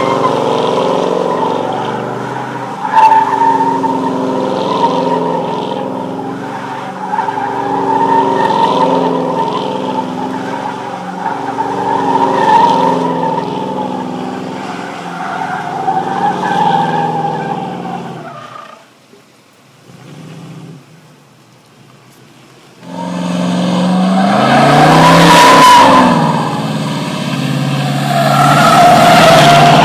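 1969 Chevrolet Chevelle V8 running at high revs while its rear tyres spin and squeal in a smoky burnout, the engine pitch rising and falling as the car circles. About 19 seconds in the engine drops off for a few seconds, then it revs hard again and the tyres resume squealing.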